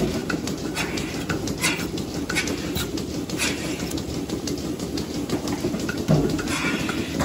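Milking parlour machinery running: a steady low hum from the milking system, broken by irregular short hisses of air and clicks as teat-cup clusters are put on the cows' udders. Near the end a cow gives a brief low moo.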